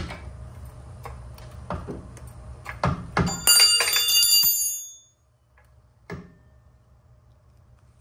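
A steel combination wrench dropped onto a concrete garage floor: a few light clinks, then a clatter and a bright metallic ringing that dies away over about a second. A single knock follows about two seconds later.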